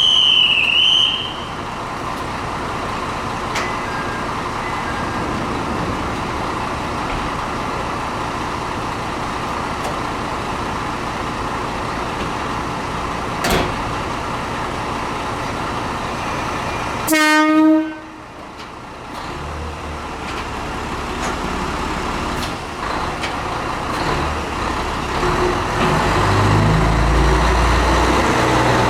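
Kanto Railway Joso Line diesel railcar at a station platform, with steady running noise. A brief high warbling tone sounds at the start, the train gives one short horn blast about 17 seconds in, and then a deep engine rumble builds toward the end as the railcar powers up to depart.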